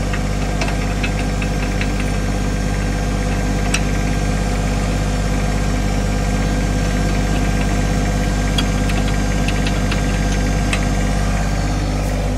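John Deere 1025R compact tractor's three-cylinder diesel running steadily, with a few light clicks from metal parts over the top.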